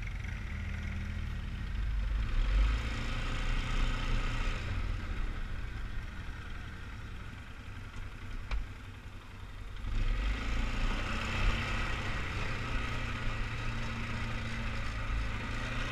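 2003 Polaris Sportsman 500 HO 6x6's single-cylinder four-stroke engine running under throttle. It picks up about two seconds in, eases off in the middle, and pulls harder again about ten seconds in. A single sharp click comes about eight and a half seconds in.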